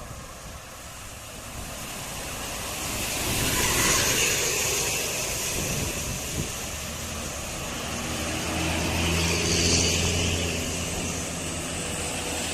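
Road traffic passing close by: a vehicle goes past about four seconds in, then a heavy vehicle's engine builds to a low, steady drone, loudest near ten seconds, as it passes.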